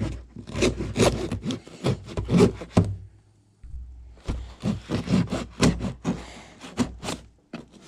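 A knife blade scraping and sawing through tape wrapped around a box, in quick repeated strokes, with a short pause a little after three seconds in.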